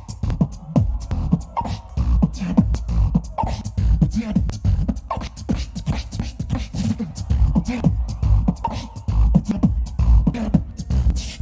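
Solo beatboxing amplified through a handheld microphone and PA: deep bass kicks and sharp, clicking snare and hi-hat sounds in a dense, continuous rhythm.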